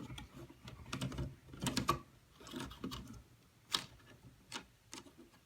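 Irregular light clicks and rustling as the house wires in a ceiling electrical box are moved about and touched with a handheld voltage tester.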